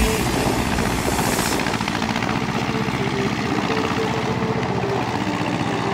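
Diesel engine of a small Ursus tractor running steadily as the tractor drifts on ice.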